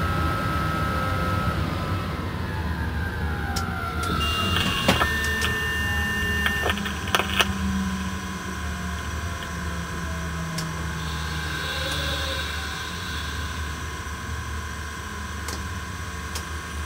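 Cab interior of an SNCF BB 27300 electric locomotive under way at low speed: a steady low hum and rumble, with a whine falling in pitch over the first few seconds. Midway, a steady electronic tone sounds for about two seconds, with a few clicks.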